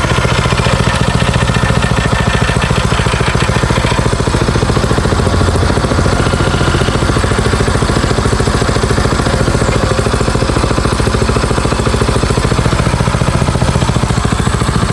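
Engine of a well-drilling rig running steadily, with a fast, even beat of firing pulses.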